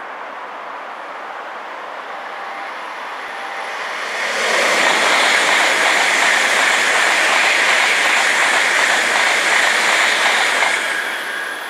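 Tokaido Shinkansen bullet train passing at high speed on the adjacent line: a rushing noise swells about four seconds in, stays loud and even for some six seconds, then fades near the end.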